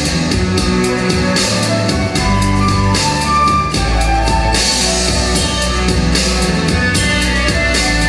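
Instrumental introduction of a folk-rock song played from a backing track, with drum kit and guitar keeping a steady beat; no vocal yet.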